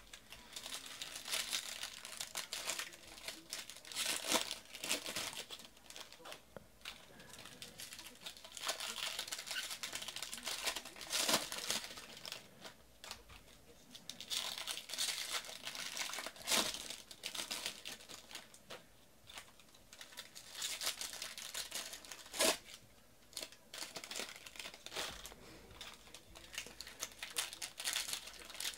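Foil trading-card pack wrappers being torn open and crinkled by hand, in irregular bursts of crackling.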